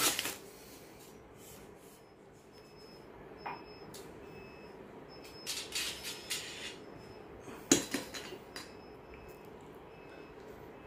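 Plastic wrapping rustles briefly at the start, then scattered light clicks and knocks of model-kit parts being handled and set down on a table, the sharpest one about three quarters of the way through.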